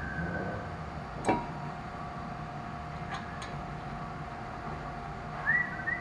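Metal clicks from brake work on a pickup's front wheel: one sharp click about a second in and two lighter ones a little past halfway, over a faint steady hum. A whistled tune starts near the end.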